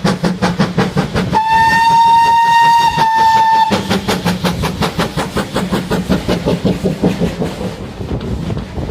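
Steam locomotive working, its exhaust beating quickly and evenly. About a second and a half in, its whistle sounds for a little over two seconds with a brief break near the end, and then the exhaust beats carry on.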